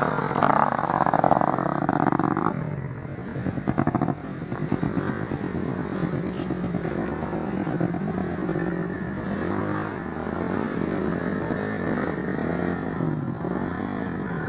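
Off-road dirt bike engines revving hard close by for the first couple of seconds, a short burst of throttle about four seconds in, then running more steadily at lower revs.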